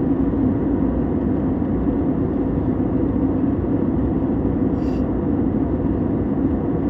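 Aeroplane engines and airflow making a steady, unchanging roar.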